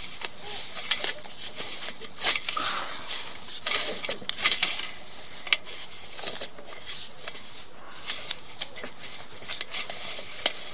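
Scattered sharp clicks and clattering taps, no steady rhythm: handling noise of a sewer inspection camera's push cable being shoved and worked against a pipe fitting that the camera head cannot get past.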